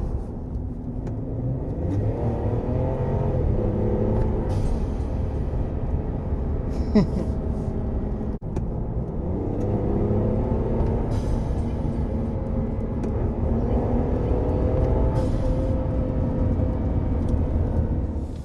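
Ram pickup's 3.0-litre Hurricane twin-turbo straight-six accelerating from a slow launch. The revs climb several times and fall back between upshifts, with a few short bursts of hiss.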